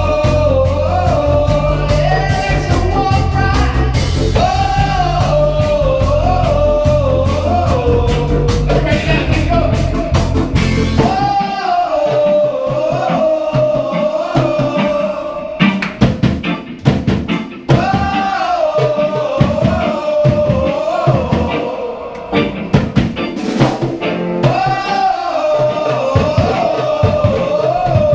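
Live band playing with a sung vocal line over bass and drums. About eleven seconds in, the bass and cymbals drop out, leaving the singing over sparse drum hits.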